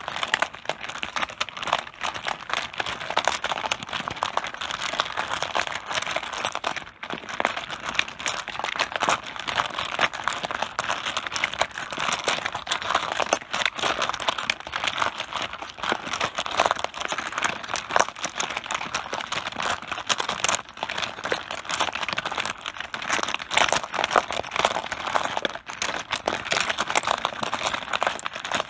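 Mahjong tiles clattering on a tabletop: a dense, unbroken run of sharp clicks as the tiles knock against each other and the table.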